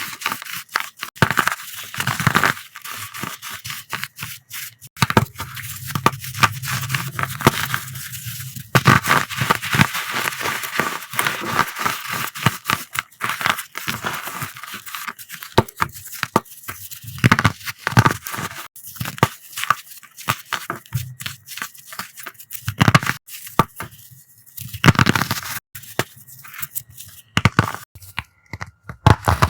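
Crumbly coloured chalk-type powder blocks being crushed, a steady crunchy crackle of many small snaps with a slight squeak. A few heavier crunches come about two-thirds of the way in and near the end.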